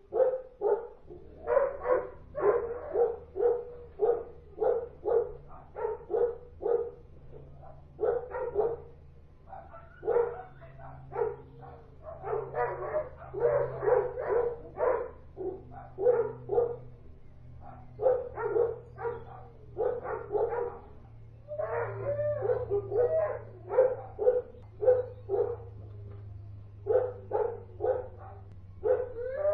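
Kennel dogs barking persistently in runs of short sharp barks, a few a second, with brief pauses between runs and a wavering yelp about two-thirds of the way through. A faint steady low hum lies underneath.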